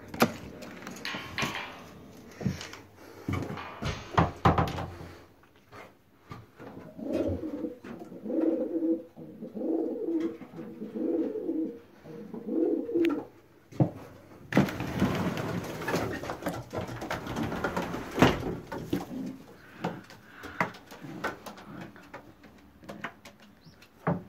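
Domestic pigeons cooing in their loft, a run of repeated low coos through the middle. A door handle and latch click sharply near the start, and a few seconds of rustling noise follow the coos.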